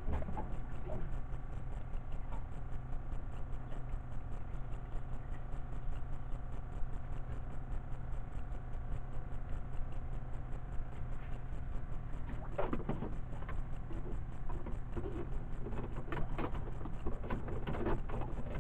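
Steady low hum of a boat's motor with a faint whine over it. About two thirds of the way in and again near the end come bursts of clicking and rattling from handling a fishing rod and reel.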